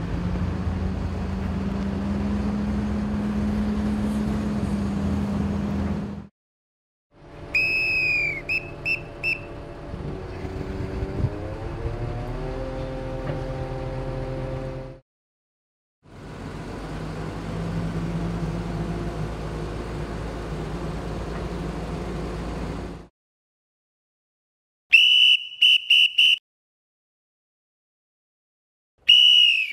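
Mobile crane engine running. About seven seconds in, a whistle signal of one long blast and three short ones sounds, and the engine note then rises as the telescoping boom extends. Near the end, the same one-long, three-short whistle signal sounds on its own; it is the signal for jib-trolley out, telescoping boom extended.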